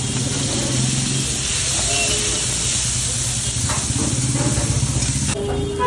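Peas and diced carrots sizzling on a large flat griddle as a metal spatula stirs them: a loud, steady hiss over a low steady hum, cutting off suddenly near the end.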